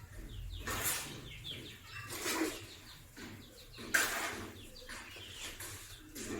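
Birds chirping, with three louder, sudden noises about one, two and a half and four seconds in.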